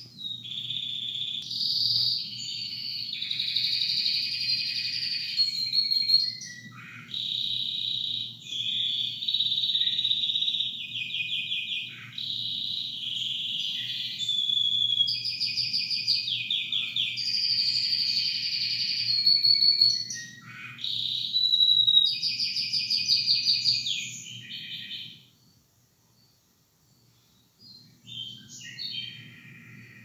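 Canary singing a long, continuous song of rapid rolling trills and clear whistled notes. It breaks off about 25 seconds in, then starts again more softly near the end. A low steady hum lies under the song and drops out with it.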